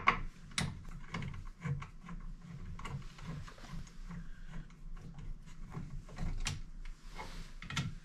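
Hand screwdriver backing the screws out of the x-ray switch's metal mounting bracket: irregular small metallic clicks and scrapes, several a second.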